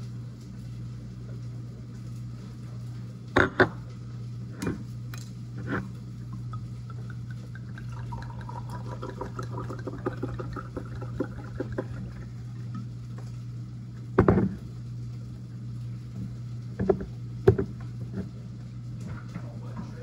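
Red wine being poured from a bottle into a wine glass for a few seconds, the pour rising in pitch as the glass fills. Around it are several sharp knocks and clinks of the glass and bottle being handled and set down.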